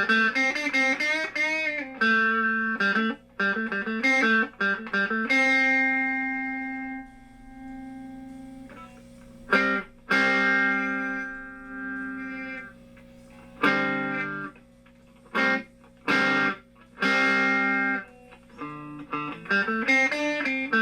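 Hofner 459 VTZ solid-body electric guitar played through an amplifier with its treble boost switched on. There are wavering bent notes at first, then chords left to ring and cut off, and a quick phrase near the end. The treble boost is working again and passing sound.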